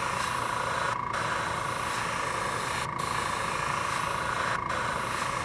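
Airbrush spraying paint: a steady hiss of air with a thin whistling tone, the hiss thinning briefly three times.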